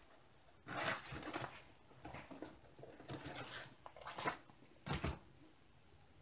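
Light handling and rustling as a mesh zip pouch is handled and a roll of double-sided tape is taken out, a few short scrapes and taps, the sharpest about five seconds in.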